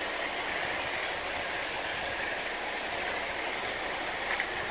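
Motorized Paw Patrol toy train running around its plastic track with a steady whir and rattle, and a couple of light clicks near the end.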